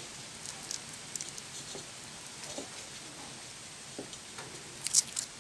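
Faint rustles and small clicks of a plastic butter packet being squeezed out into a cored pear in a tin can, with a short, louder crinkle of the packet near the end.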